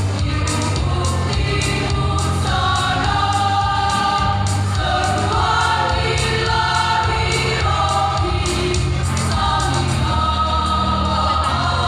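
A choir singing sustained, held notes over a steady low instrumental accompaniment with a regular beat about twice a second.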